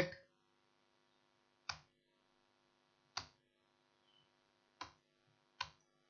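Four faint, short clicks, the first three about a second and a half apart and the last coming sooner.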